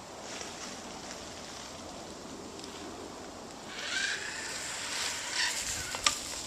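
Zip line trolley running along the cable under a rider, a rushing hiss that grows louder about four seconds in, with a single sharp knock just before the end.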